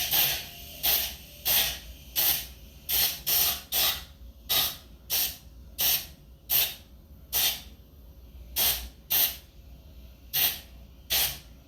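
Compressed-air blow gun fired in a series of short, sharp hissing blasts, about seventeen of them at one or two a second, blowing a transmission part clean.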